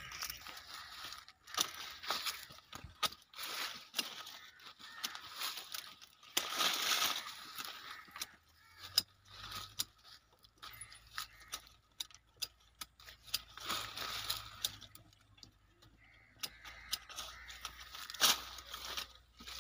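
Hand pruning shears snipping guava twigs, with leaves and branches rustling as they are handled: scattered sharp clicks, the loudest near the end, between stretches of rustling.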